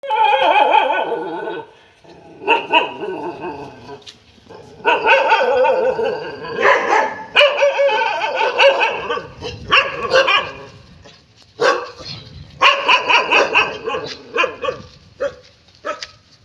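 Dogs barking and yipping in repeated bouts with brief pauses.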